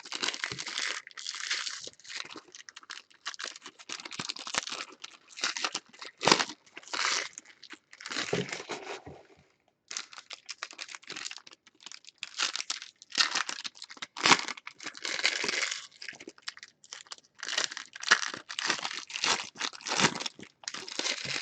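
Panini Chronicles baseball card packs being torn open and handled, with irregular crinkling and tearing of the plastic wrappers and a short pause about halfway through.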